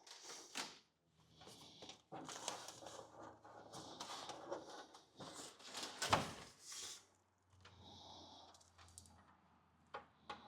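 Automotive wires being handled and bundled with electrical tape: irregular rustling, crinkling and small clicks, with one sharp knock about six seconds in.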